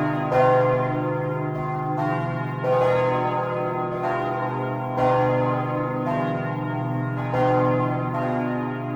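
Peal of four church bells ringing together for evening mass, their strikes overlapping into a continuous ringing over a low steady hum. One strike stands out about every two and a half seconds.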